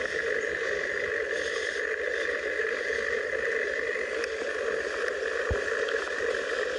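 Steady wind rush buffeting a phone's microphone on a moving road bike.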